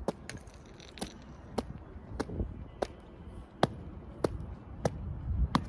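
Footsteps on hard pavement at an even walking pace: about ten sharp heel strikes, a little under two a second, over a low background hum.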